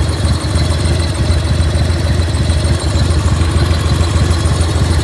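1995 Harley-Davidson Bad Boy's 1340 cc Evolution V-twin idling steadily, with a thin steady high tone over the engine; the owner posts it for a strange noise the engine makes.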